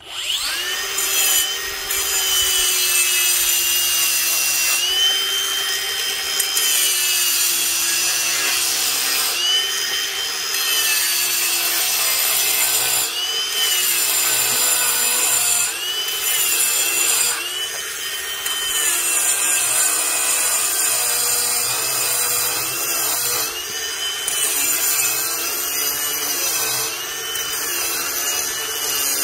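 Ryobi P423 brushless cordless angle grinder with a diamond blade starting up and grinding concrete: a high motor whine over loud gritty scraping. The whine sags and recovers again and again as the blade bites into the concrete under load.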